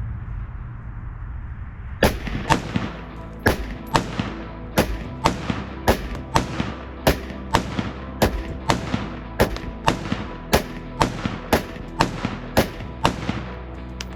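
Radical Firearms RF-15 AR-15 rifle fired semi-automatically in rapid succession: about two dozen sharp shots at roughly two a second, starting about two seconds in. Background music plays underneath.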